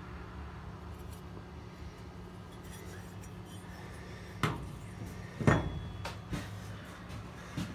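Four sharp clinks and knocks of steel being handled among the tools in an open toolbox, starting about four and a half seconds in, the second the loudest. Under them runs a steady low hum.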